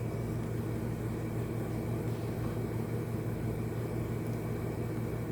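A steady low hum over a faint even hiss, with no distinct events, like a running appliance or fan in the room.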